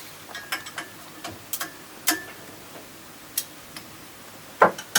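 Irregular light metallic clicks and taps from a hand tool tightening the set screws on a centrifugal pump's seal drive collar. The loudest pair comes near the end.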